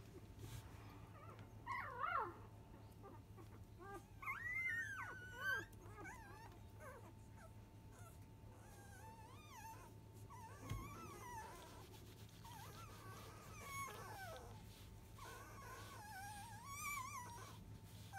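Five-day-old Labrador retriever puppies squeaking and whimpering while they nurse: short, high, wavering squeals, loudest about two seconds in and again around four to five seconds in, with softer ones scattered throughout. A faint steady hum sits underneath.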